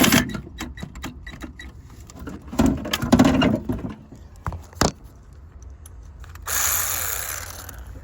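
Cordless power tool run in short bursts in reverse on an engine bolt, with sharp metal clicks of the tool and socket, and a hiss about six and a half seconds in.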